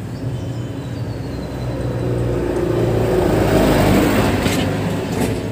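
A motor vehicle passing by: a low engine hum swells to a peak about three and a half seconds in, then fades.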